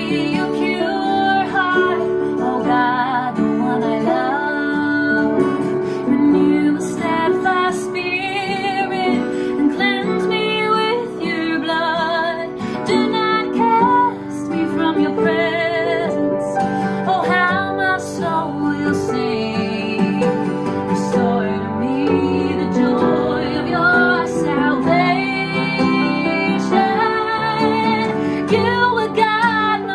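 A woman singing with vibrato, accompanied by an EKO acoustic guitar and an upright piano.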